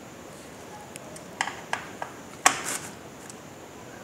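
Screwdriver working a small screw out of the cleaning blade mount on a copier drum unit: a few sharp clicks and ticks of metal on plastic, the loudest about two and a half seconds in.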